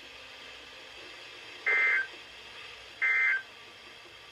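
Two short electronic data bursts of NOAA Weather Radio SAME/EAS code, about a second apart: the end-of-message signal that closes the severe thunderstorm warning.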